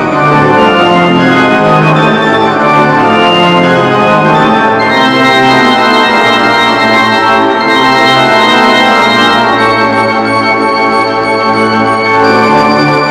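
Large pipe organ with over 1,500 pipes playing loudly, full chords held over a moving bass line on the pedals.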